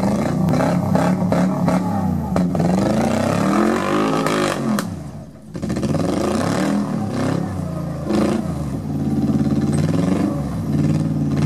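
Off-road trial vehicle's engine revving hard under load as it climbs a steep bank, its pitch swinging up and down again and again. It drops away briefly about five seconds in, then revs up again. A few knocks and clatters are heard in the first couple of seconds.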